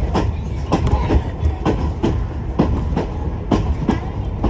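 Railmotor 91RM running along the line, its wheels clacking over rail joints about twice a second above a steady low rumble.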